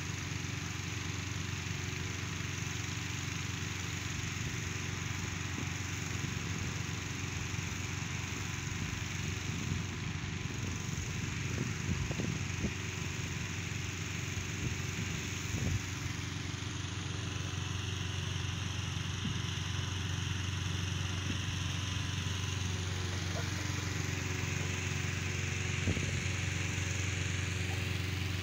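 Petrol-engine inflator fan running steadily, blowing cold air into a hot-air balloon envelope lying on the ground.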